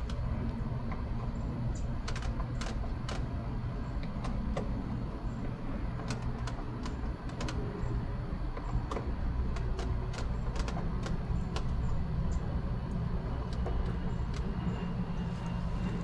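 Scattered small metallic clicks and taps of screws being hand-tightened with a screwdriver, fixing a smart-lock mounting plate over the deadbolt on an RV door, over a steady low rumble.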